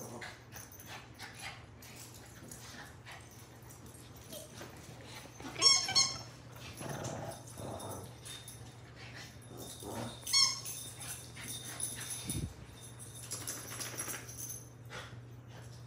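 Small dog giving short, sharp, high-pitched yips, once about six seconds in and again about ten seconds in, with rustling of fur and fabric in between.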